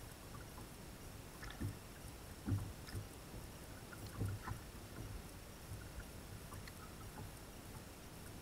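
A few dull, low knocks aboard a bass boat, three of them in the first half, over a faint steady hiss, with a few light ticks.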